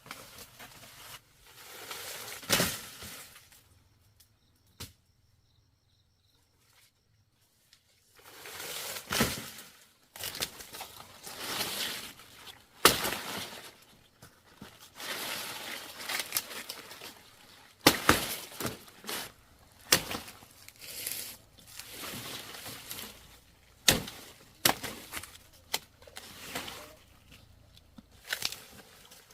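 Sugarcane stalks being chopped and snapped by hand: irregular sharp cracks with rustling in between, and a pause of a few seconds near the start.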